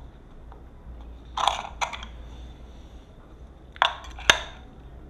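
Hard plastic clicks and knocks from a handheld propeller tachometer's battery compartment as batteries are fitted and the cover is handled: a pair of sharp clicks about a second and a half in and another pair near four seconds.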